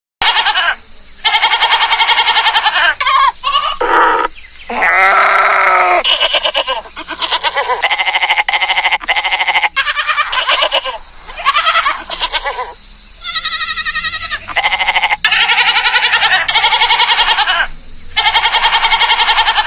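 Goats bleating over and over, one call after another with short gaps between them. The calls vary in pitch and several have a wavering, quavering tone.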